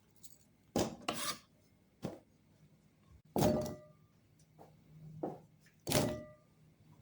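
Kitchen prep knocks while cutting potatoes: a few sharp taps of a knife on a cutting board, then two louder ringing clinks of a dish or bowl being set down or struck.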